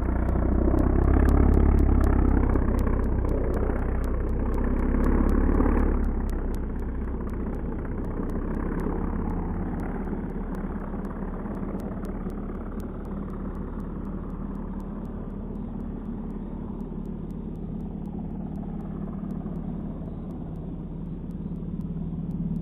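The 3W 684 petrol engine and propeller of a giant CAP-232 model aerobatic plane, loud as the plane makes a low pass. About six seconds in the sound falls away, and the engine runs more quietly and steadily as the plane climbs into the distance.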